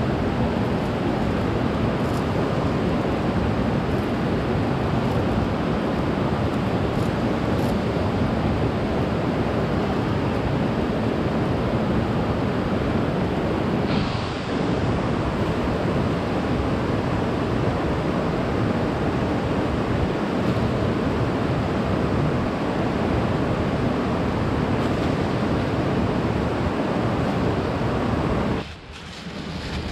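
Steady rush of flowing river water, an even noise that dips briefly about halfway through and again near the end.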